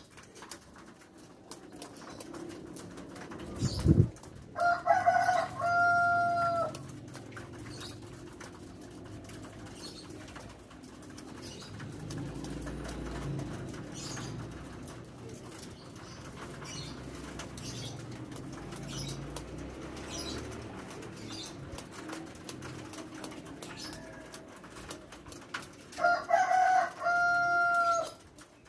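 A small dove coos twice, about five seconds in and again near the end. Each call is a short run of broken notes that ends in one held, steady note. A single low thump comes just before the first call, over a faint steady low hum.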